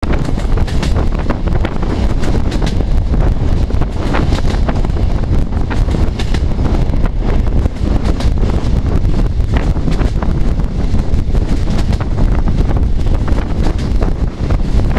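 Wind buffeting a microphone held out of a moving passenger train's window, over the steady rumble and frequent clatter of the carriage wheels on the track.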